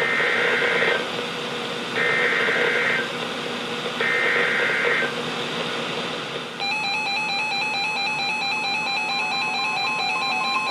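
NOAA Weather Radio SAME digital header: three one-second bursts of warbling data tones about a second apart, over steady radio hiss, announcing a new severe thunderstorm warning. About six and a half seconds in, a weather radio alert tone starts and runs on, rapidly alternating between two pitches.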